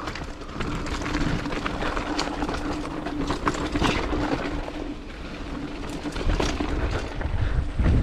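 Mountain bike ridden over a bumpy dirt trail: steady tyre and drivetrain noise with the bike rattling and frequent small clicks and knocks from bumps. A steady hum runs through the first half, and the rumble grows louder near the end.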